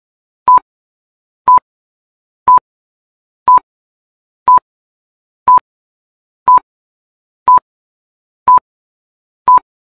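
Countdown timer beeping: ten short, identical electronic beeps at one steady pitch, one each second, counting down the seconds.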